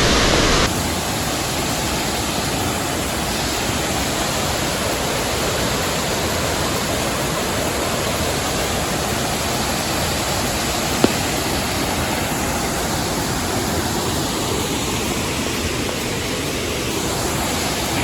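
Waterfall pouring into a pool: a steady rush of falling water, a little louder for the first moment, with a single sharp click about eleven seconds in.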